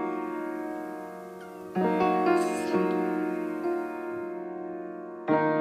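Slow background piano music: sustained chords that fade away, a new chord struck about two seconds in and another near the end.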